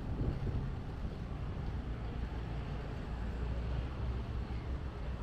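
Outdoor town-street ambience: a steady low rumble with no distinct events.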